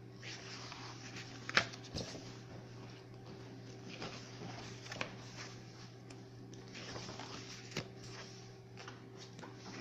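Pages of a book being turned by hand: repeated soft paper swishes and rustles every few seconds, with a few sharp clicks as pages are handled, the loudest near the start.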